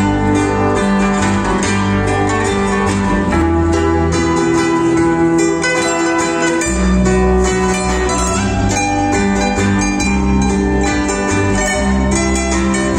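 Live band music: acoustic guitars playing over a low bass line, heard through the hall's loudspeakers. The bass drops out for about two seconds midway and comes back in.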